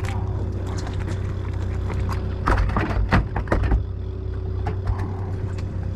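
Fishing boat's engine idling with a steady low hum, and a cluster of loud knocks and thumps on the boat from about two and a half to four seconds in.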